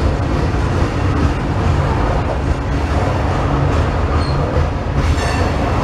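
Coal hopper cars of a CSX freight train rolling past, a steady heavy rumble of wheels on rail, with a brief high squeal near the end.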